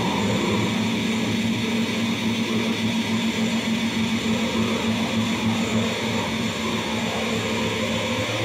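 Live noise music: a loud, steady wall of dense amplified noise with a constant low drone running under it.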